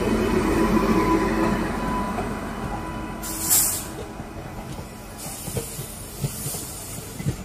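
WAP-5 electric locomotive and express coaches pulling away slowly: a steady whine from the locomotive with a running rumble, fading as it moves off, a short loud hiss about halfway, then the coaches rolling past with scattered wheel clicks over the rail joints.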